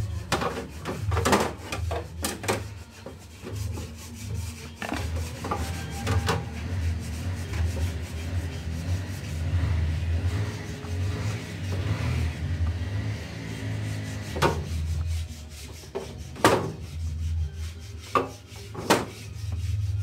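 Apples being lifted out of a refrigerator vegetable drawer and put into a plastic basket: rubbing and scraping of fruit and hands on plastic, with about ten sharp knocks of apples against the plastic basket and drawer, over a low hum.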